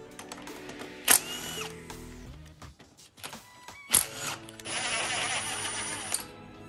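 Background music, with two sharp metal clinks of hand tools on engine parts and a short mechanical whir lasting about a second and a half near the end.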